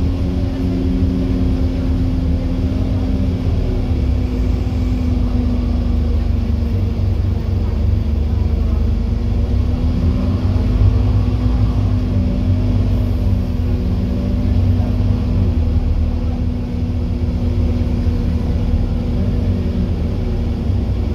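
Scania N230UD OmniCity double-decker bus under way, heard from inside on the upper deck: a steady low engine drone with a constant whine above it, the bus holding a long gear at cruising speed. A very tired, worn bus.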